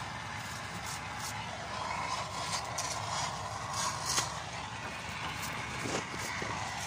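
Stick (arc) welding on steel: the arc crackling and hissing steadily, with many short sharp clicks scattered through.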